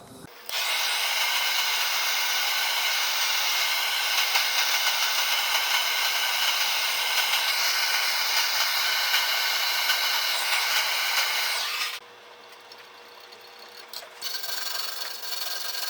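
Electric drill with a small 1/8 inch bit drilling a stop hole into a cast iron exhaust manifold at the end of a crack, so that the crack cannot spread. The motor runs with a steady whine for about twelve seconds and then stops. A fainter sound picks up again about two seconds later.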